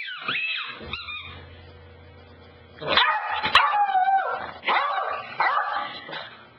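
Beagle puppy whining and yipping, with short gliding calls at first and a louder run of whines and barks from about three seconds in.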